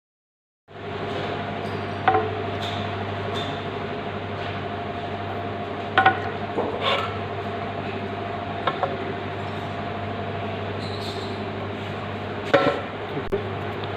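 A steady mechanical hum cuts in just under a second in. Over it come a handful of sharp knocks and clinks of hard objects, the loudest about two, six and twelve and a half seconds in.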